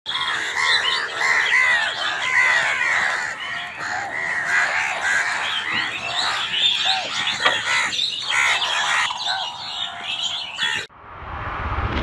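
A flock of house crows cawing together, many harsh calls overlapping without a break. It cuts off abruptly about eleven seconds in and a rising whoosh of music takes over.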